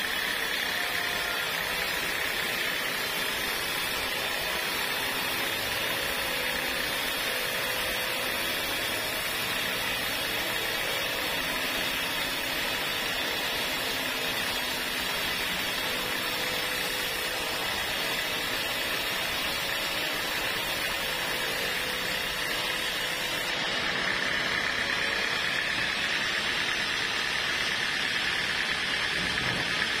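Band sawmill ripping lengthwise through a long teak beam: the blade runs steadily through the wood with an even sawing hiss and a constant high whine.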